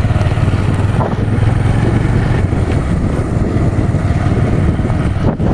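A vehicle engine running steadily while on the move, with a low, even hum and wind noise on the microphone. The sound drops out abruptly at the very end.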